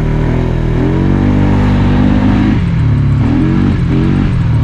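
Polaris Sportsman ATV engine revving up under acceleration, easing off about two and a half seconds in, then revving up and dropping back once more near the end.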